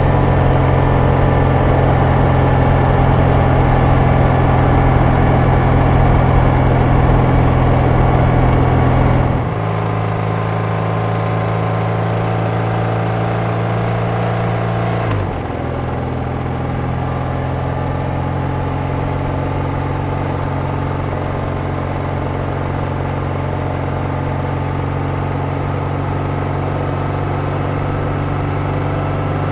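BMW R100RS air-cooled OHV boxer twin running steadily under way, a low, even exhaust drone. The engine note and level drop abruptly about a third of the way in and shift down slightly again around halfway, then hold steady.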